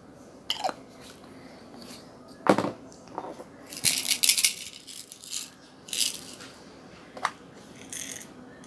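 Small loose pieces rattling and clicking in a container as they are shaken out. There are scattered separate taps, the sharpest about two and a half seconds in, and a burst of rattling around four seconds.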